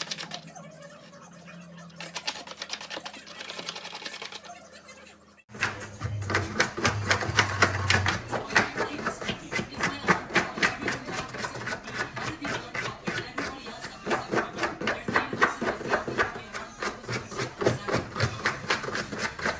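A Pomeranian digging under a blanket, its claws scratching rapidly and unevenly at the blanket and foam floor mat: the nesting digging of a dog in labour. The scratching starts suddenly about five seconds in, after a quieter stretch.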